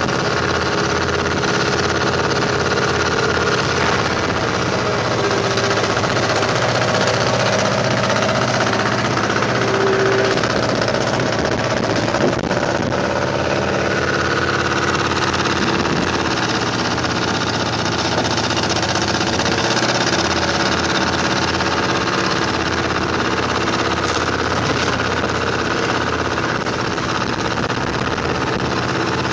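Engine of construction-site machinery running steadily while a concrete roof slab is poured.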